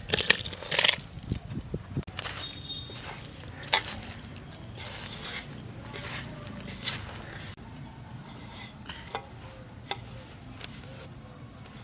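Cooking sounds: a quick run of sharp clinks and knocks of utensils against cookware in the first second, then quieter handling noise with a few single clicks.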